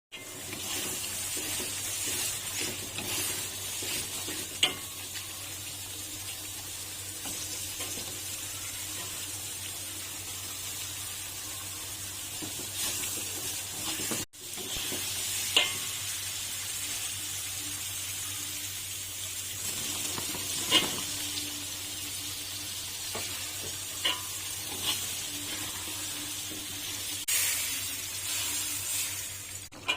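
Beef and chillies sizzling as they are stir-fried in a pan, with a few sharp clinks of the spatula against the pan. The sizzle breaks off briefly about halfway through.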